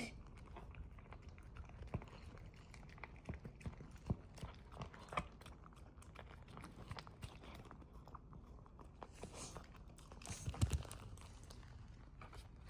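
Puppy eating, chewing with a run of small irregular clicks, and a louder burst of chewing about ten and a half seconds in.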